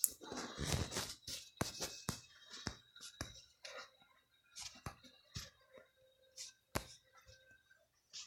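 Drawing on paper by hand: short scratchy strokes of a drawing tool, with scattered light taps and clicks.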